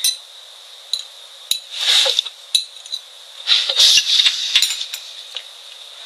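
Cutlery clinking and scraping against plates: scattered light clicks with a few longer scrapes, about two seconds in and again around four seconds.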